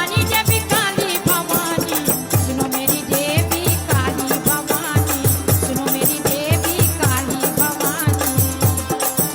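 Instrumental passage of a Hindi devotional bhajan: a wavering melody over clusters of hand-drum bass strokes that drop in pitch, about once a second, with a jingling rattle above.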